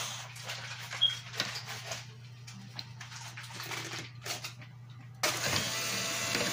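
A few light clicks and taps, then about five seconds in a small cordless screwdriver's motor starts suddenly and runs steadily, driving a cabinet hardware screw.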